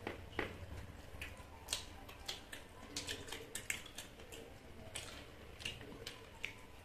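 Wet mouth noises of people eating momos straight off their plates without using their hands: irregular smacks and clicks of lips and chewing, a few a second.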